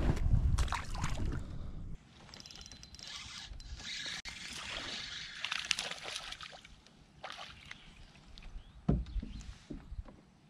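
Water sloshing and splashing around a kayak, with a few knocks against the hull. Near the start there is a heavy low rumble of handling or wind noise that cuts off abruptly.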